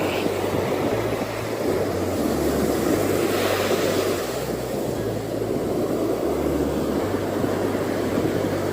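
Strong wind rushing over the microphone together with the wash of surf, a steady dense noise with no break. A low bass line of background music runs underneath.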